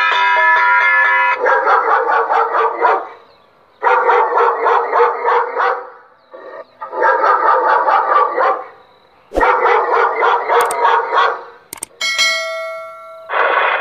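An electronic animal repeller's horn loudspeaker plays loud, rapid dog barking in repeated bursts of about one and a half to two seconds with short gaps between them. A steady electronic tone sounds at the start and again shortly before the last burst.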